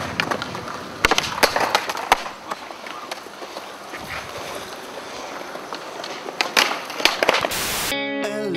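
Skateboard wheels rolling on concrete, with several sharp clacks of the board striking the ground. Guitar music starts near the end.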